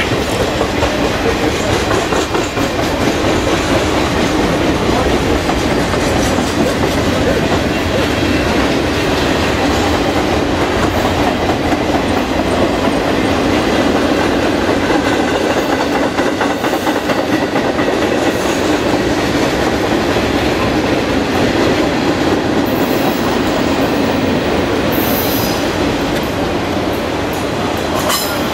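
Freight cars of a mixed manifest train (boxcars, a tank car and autoracks) rolling steadily past on the rails, a continuous rumble with the clickety-clack of steel wheels over the rail joints. A few brief high-pitched wheel squeals come near the end.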